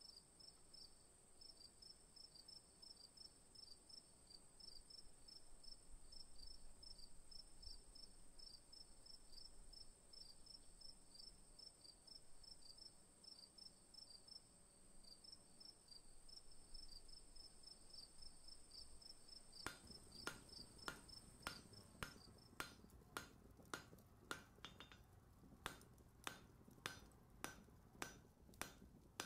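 Faint crickets chirping in a steady, pulsing pattern. About twenty seconds in, hammer blows on an anvil begin, about two a second, each ringing briefly.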